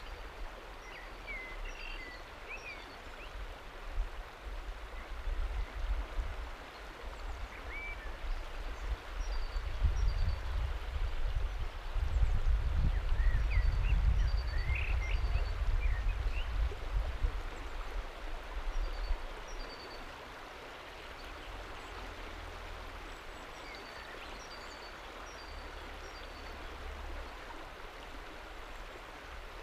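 River water flowing steadily and washing over the edge of a flat rock shelf. A low rumble swells from about ten seconds in and fades again just before twenty seconds, with small high chirps scattered throughout.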